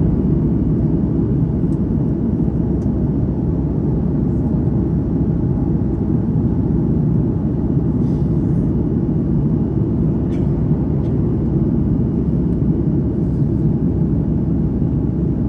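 Steady cabin roar of a Boeing 737-800 in flight, the engine and airflow noise heard from a window seat, with a few faint ticks on top.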